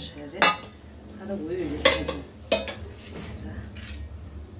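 Steel plates knocking and clinking together as they are handled: three sharp clanks, about half a second in, near two seconds, and just after. A low steady hum runs underneath.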